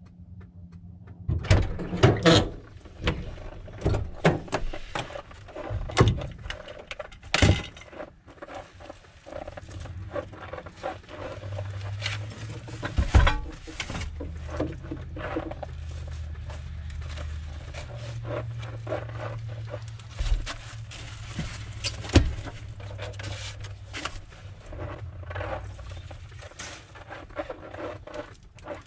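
Parts of a cast-iron wood stove being handled and loaded into the back of a van: irregular knocks, thuds and scrapes, a few of them sharp and loud, over a low steady rumble.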